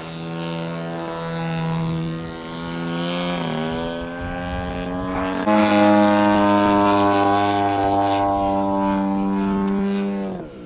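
Radio-controlled aerobatic model airplane's engine and propeller running in flight. The pitch shifts about three and a half seconds in. About five and a half seconds in it jumps to a louder, higher steady note, then falls sharply as the throttle is pulled back near the end.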